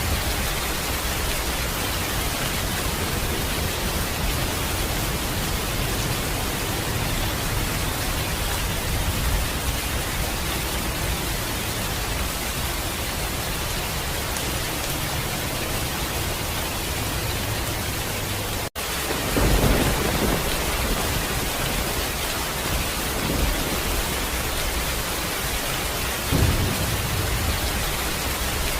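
Steady heavy rain with low rolls of thunder, one swelling up about two-thirds of the way through and another near the end. The sound cuts out for an instant just before the first of these rolls.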